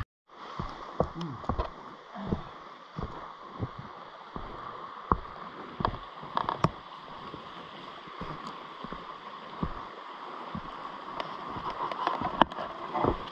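Gurgling flow of a stream, a steady rush with scattered short clicks and splashes.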